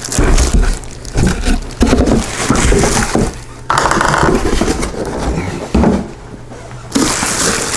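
Handling of a meat grinder's packaging and parts: rustling and scraping, with a few knocks as pieces are set down.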